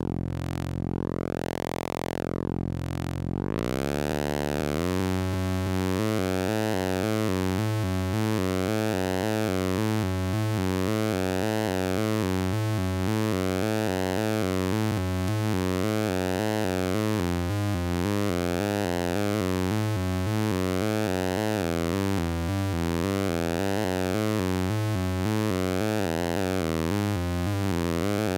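Handmade CMOS square-wave lunchbox synthesizer playing a deep bass tone with its automated filter sweeping up and down. About four to five seconds in, the sweeps give way to a fast stepped pulsing from the automated pulse-width modulation over a steady low note, and the sweeps return near the end.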